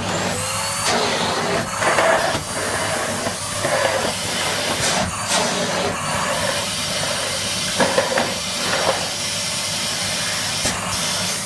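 Zanussi ZAN1910UEL bagless cylinder vacuum cleaner switched on and running at full suction: a loud, steady rushing of air over a low motor hum, starting abruptly, its sound surging briefly now and then.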